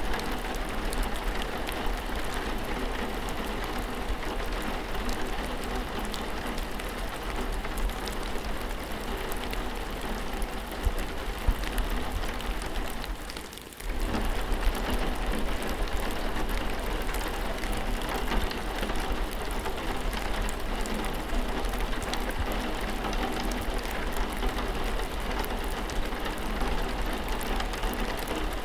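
Steady rain falling, a dense hiss of many small drop patters. About halfway through it fades down for a second or two, then comes straight back.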